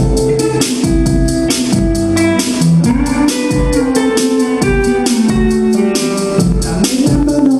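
Live band playing an instrumental passage between vocal lines: electric guitar over a steady drum-kit beat with cymbals.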